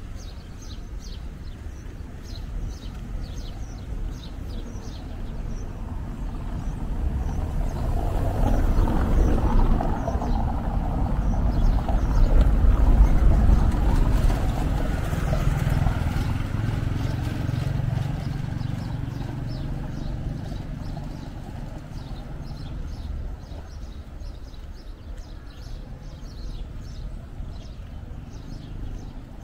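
Street traffic: a motor vehicle passing, its rumble swelling to a peak about halfway through and then fading, with faint bird chirps throughout.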